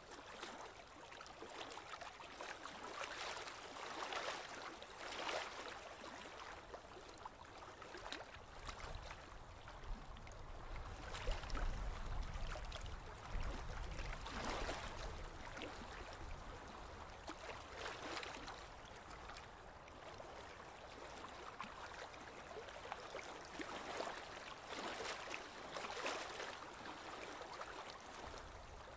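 Water lapping and splashing against the hull of a small boat moving slowly over calm water, in uneven washes every second or two. A low rumble joins in about ten seconds in and fades a few seconds later.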